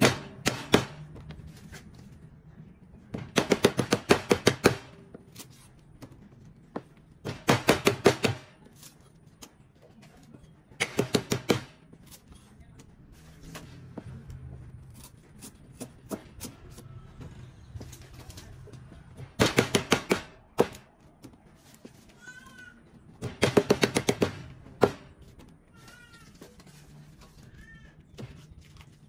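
Steel cleaver chopping rapidly on a thick wooden chopping block. It comes in five quick bursts of fast strokes, each about a second or so long, with pauses in between.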